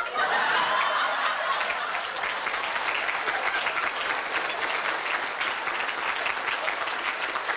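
Studio audience applauding, a steady dense patter of clapping mixed with laughter.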